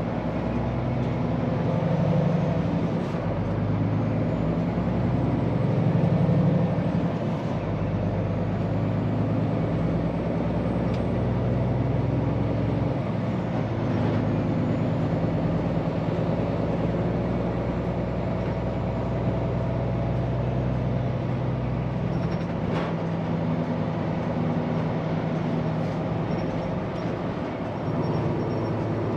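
Diesel engine of a Scania P410 truck running steadily, a little louder and changing pitch slightly in the first several seconds, then holding an even note, with a couple of faint clicks.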